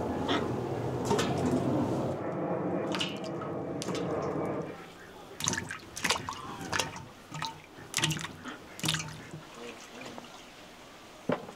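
Water pouring into a container for about four and a half seconds, then stopping, followed by a string of sharp knocks and clinks.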